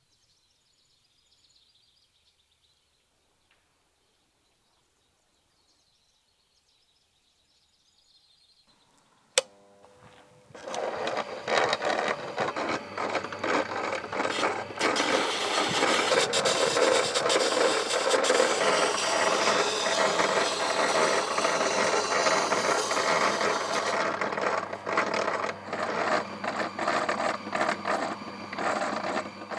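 A sharp click, then about a second later a motor-driven workshop tool starts working metal or wood. Its dense, scratchy grinding sound over a steady motor hum lasts about nineteen seconds and cuts off right at the end.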